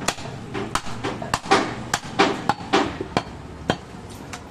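Heavy cleaver chopping through goat ribs on a wooden log chopping block: a quick run of about a dozen sharp chops, about three a second, thinning out near the end.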